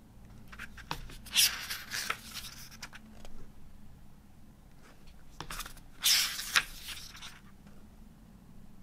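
Paper pages of a small hardbound book being turned by hand, twice: a rustle of paper about a second and a half in and another around six seconds in, each with a few light ticks as the leaf is handled.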